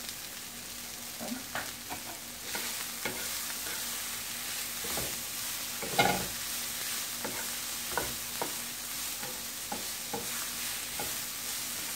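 Broccoli and leeks sizzling in olive oil in a nonstick skillet, stirred with a wooden spatula that knocks and scrapes against the pan at irregular moments. The loudest knock comes about six seconds in.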